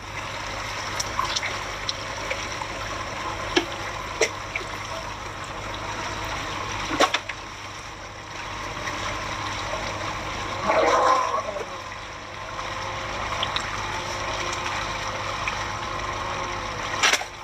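Water running and splashing steadily, with a few sharp knocks and a short pitched sound about eleven seconds in.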